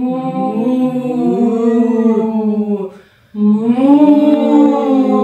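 Several women's voices mooing together like cows: two long drawn-out moos, the second starting after a short break about three seconds in.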